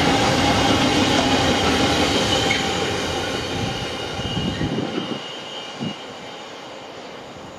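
Container wagons of a long intermodal freight train rolling past on the rails, the wheels rumbling with a steady high whine. The sound fades away from about halfway through as the end of the train recedes.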